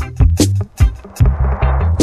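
Dub reggae music with a deep, sustained bass line and sharp drum hits. A swelling wash of noise builds through the second half.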